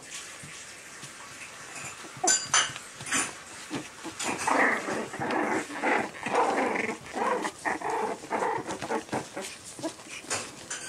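Jack Russell Terrier puppies play-wrestling, making a quick run of short puppy growls and yips from about four seconds in. A few sharp knocks come about two seconds in.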